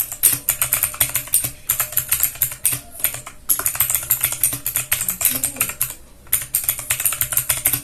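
Fast typing on a Vortex VX5 60% mechanical keyboard fitted with clicky OTMO blue switches: a dense run of sharp keystroke clicks, broken by two short pauses about three and six seconds in.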